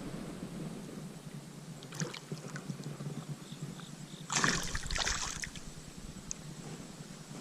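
Water sloshing and splashing, with a louder splash lasting about a second, roughly four and a half seconds in.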